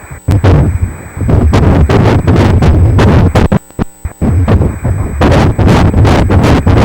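Ultrasound Doppler audio of a 9-week fetal heartbeat: a loud, rapid, even whooshing pulse, about three beats a second. It drops out briefly a little past halfway, then picks up again.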